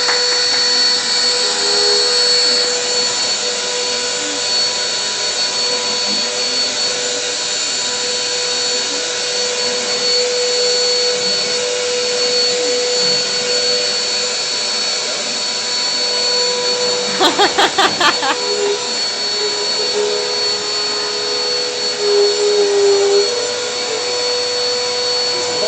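Vacuum cleaner running steadily, a constant motor whine with airflow hiss, being pushed across a floor. About two-thirds of the way through there is a brief, rapid fluttering pulse lasting about a second.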